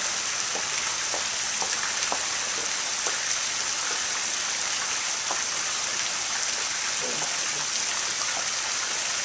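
Steady splashing of pool fountain jets arcing into the water, a continuous even rush.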